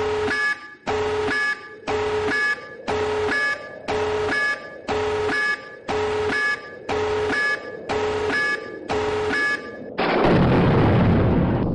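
Electronic warning alarm beeping in regular pulses, just over one a second, then about ten seconds in a loud nuclear-blast sound effect: a sudden explosion followed by a long rushing rumble.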